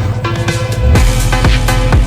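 Electronic dance music with a steady kick-drum beat, about two beats a second, over held synth notes.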